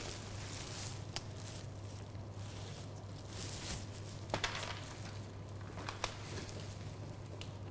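Rustling and handling noise from a person's plastic apron and sleeves while holding a kitten, with a few sharp clicks about a second in, around the middle and near six seconds, over a steady low hum.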